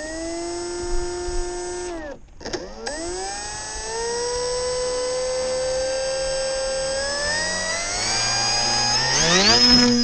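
X-8 flying wing's electric motor and pusher propeller spinning up with a rising whine, cutting off after about two seconds, then spinning up again. The pitch climbs steadily and then sharply to full throttle near the end for the launch.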